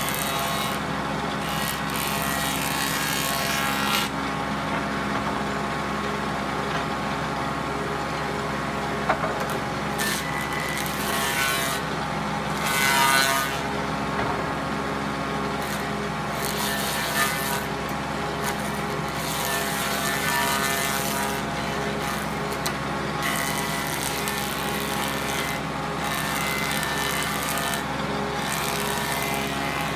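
An electric power-tool motor running steadily, with irregular surges of noise every few seconds as wood is cut.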